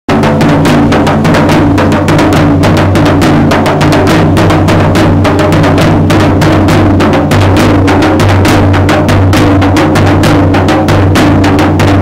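Double-headed rope-tensioned barrel drum (dhol) beaten with sticks in a quick, steady, loud beat, with a wavering droning tone held beneath it.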